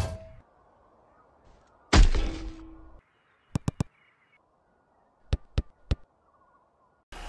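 A football kicked hard twice, each a sharp thud that fades over about a second, followed by two quick runs of three sharp taps.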